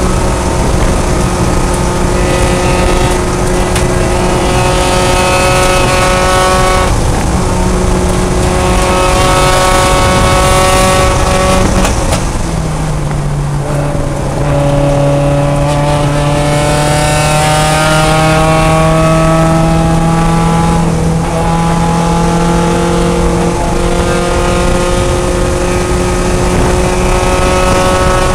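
Mazda Miata race car engine heard from inside the stripped cockpit. It runs at steady high revs, drops sharply in pitch about twelve seconds in as the car slows for a corner, then climbs slowly in pitch under full throttle as the car accelerates again. Constant road and wind noise lies beneath it.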